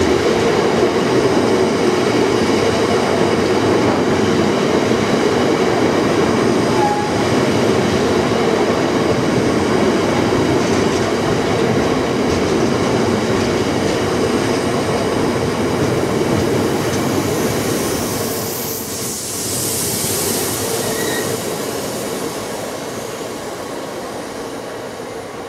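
Freight train of bogie cement tank wagons rolling past on the rails, a steady loud rumble of wheels on track. It dips about three-quarters of the way through and then fades as the last wagon draws away.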